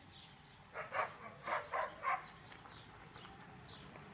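A small dog barking: a quick run of about five short barks, then it stops.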